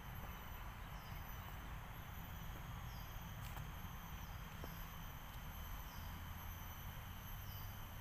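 Insects droning steadily in several high, even tones, with a short falling chirp repeating every second or so, over a low rumble on the microphone.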